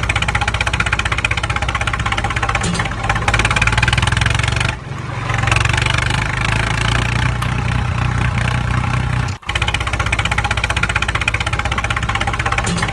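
Tractor engine sound running at a fast, even chug, broken by two short dropouts about five and nine seconds in.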